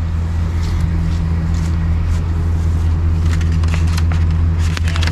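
Steady low drone of an idling engine, with a few light clicks about three and a half and five seconds in.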